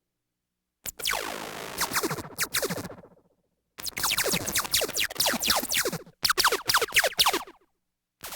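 Synthesized sci-fi laser blasts: volleys of rapid zaps, each a quick falling sweep in pitch. Three bursts, starting about a second in, near the middle and past the middle, separated by brief silences.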